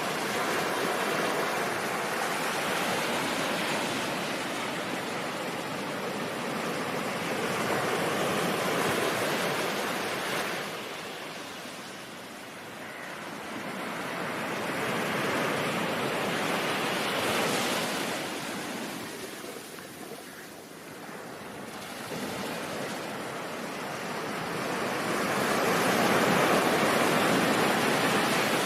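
Ocean surf: a steady wash of waves that swells and ebbs every several seconds.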